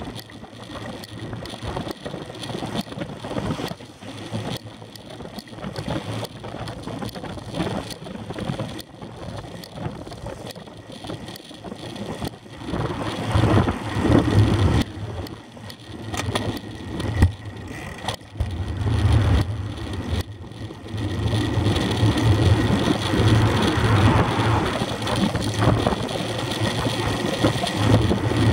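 Wind rushing over a bicycle-mounted camera's microphone with a low rumble of tyres on the road as the bike rolls along, growing louder in the second half, with car traffic passing.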